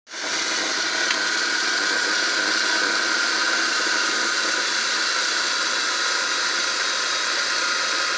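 Homemade corn-crushing machine running: a steady, hissing whir with a high whine held through it, and one small knock about a second in.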